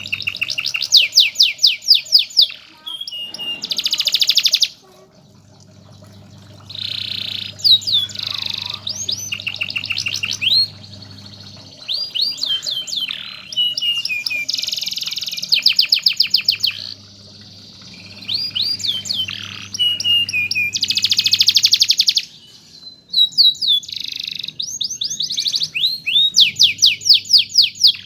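Domestic canary singing: a continuous song of rapid trills and rolls, each phrase a fast run of repeated high notes lasting a second or two, changing from phrase to phrase with brief pauses between.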